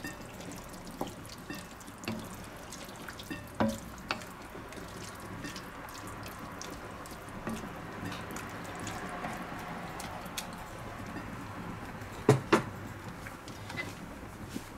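A wooden spatula stirring a simmering sauce in a pot: wet bubbling and squelching with small scrapes and clicks. A louder knock about twelve seconds in, as the spatula strikes the pot.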